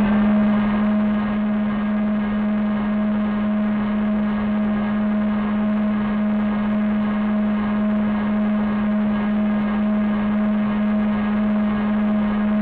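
A model floatplane's motor and propeller running steadily at high throttle on its takeoff run across the water. One held drone that holds the same pitch throughout.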